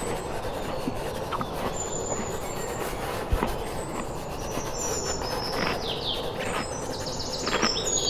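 Outdoor ambience: a steady rushing background with birds chirping, the chirps coming thicker near the end.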